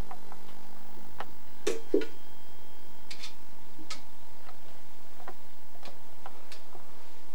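Scattered light clicks and taps, with two stronger knocks close together about two seconds in: a puppy knocking about a sandal and a plastic bottle on carpet.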